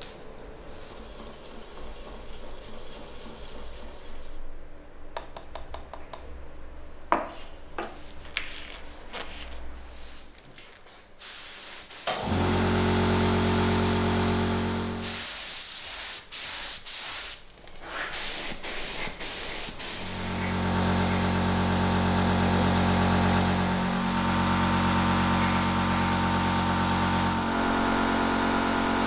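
Light clicks and handling knocks, then a small motor running with a strong hiss in two long spells, with short hissing bursts between them.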